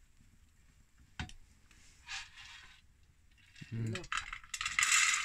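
Corn kernels rattling and clinking against a metal cooking pot, loudest in the last second, after a single sharp click about a second in.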